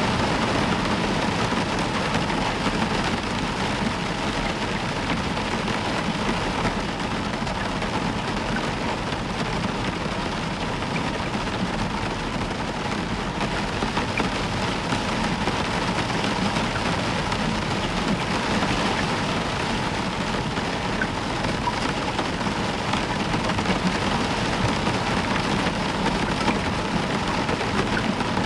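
Heavy, steady rain falling on a roof, with a low rumble of thunder underneath.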